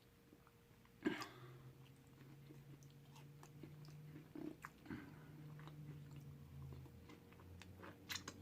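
Quiet close-up chewing of food, with small wet mouth clicks and a sharper click about a second in, over a faint low hum.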